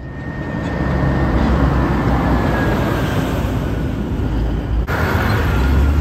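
Heavy trucks passing close by: a steady low engine and tyre rumble that swells over the first second and gets heavier about five seconds in as a big rig draws alongside.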